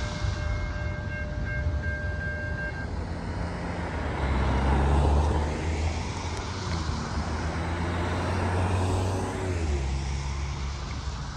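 Railroad grade-crossing warning bell ringing in a steady repeating pattern, stopping about three seconds in. Then the low rumble of cars and trucks driving through the crossing.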